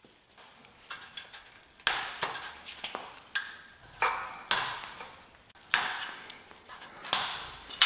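Irregular metal clanks and knocks, about eight in all, as tools and rusty metal truck parts are handled and set down, each with a brief ringing tail.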